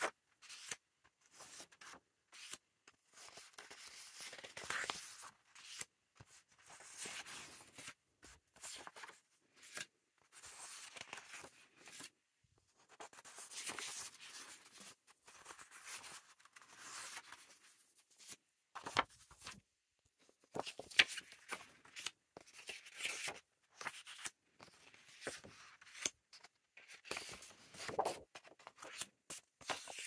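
Loose printed paper pages rustling and sliding as they are handled and laid out, in repeated bursts of a second or two, with a few sharp taps of paper on the table.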